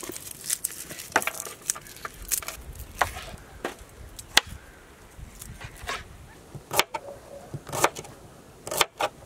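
Kitchen knives slicing shallots and garlic on plastic cutting boards: irregular sharp taps of the blades striking the boards, a few of the strongest near the end.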